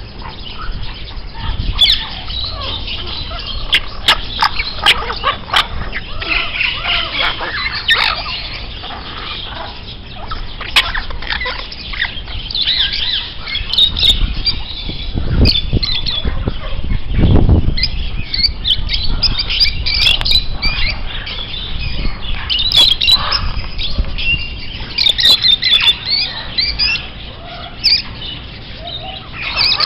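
Many birds chirping and squawking over one another in a dense, continuous chatter of short high calls. Two low thuds come around the middle.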